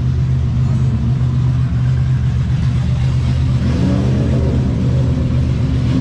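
An engine running steadily at idle, a constant low hum that does not rev up or down.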